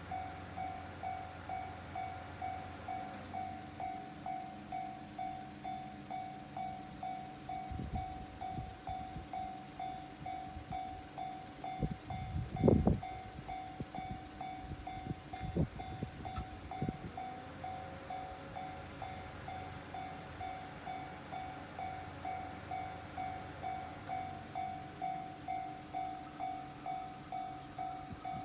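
Japanese level-crossing alarm dinging in an even, fast repeating rhythm throughout. An E131 series electric train passes over the crossing, its wheels knocking over the rail joints from about eight seconds in, loudest around thirteen seconds, then dying away by seventeen seconds while the alarm keeps ringing.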